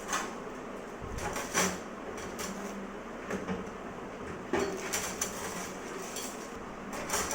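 Metal barbecue grill parts being handled, clinking and knocking against each other about half a dozen times.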